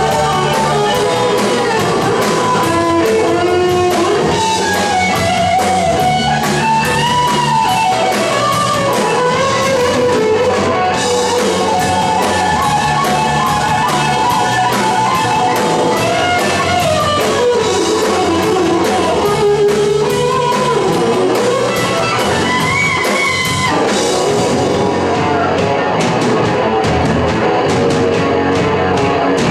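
Live rock band playing loud: an electric guitar plays a lead line that slides and bends in pitch over drum kit and bass.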